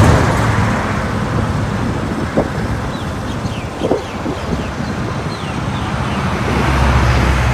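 Road traffic going past, a steady rushing noise with a vehicle's engine growing louder near the end. Faint bird chirps and a couple of small knocks come through in the middle.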